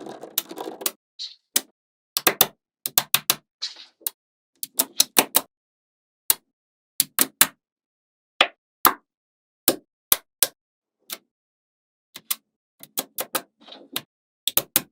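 Magnetic balls snapping together in a long series of sharp, irregular clicks, with short stretches of rattling as a cluster of balls is handled.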